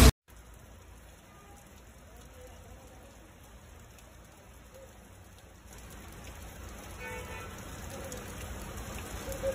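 Steady rain falling on a flooded street and running off a roof edge, faint at first and growing louder about six seconds in.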